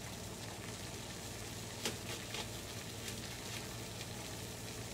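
A few soft clicks from a paring knife cutting the core out of a raw onion, about two seconds in and again later, over a faint steady hiss and low hum of kitchen background.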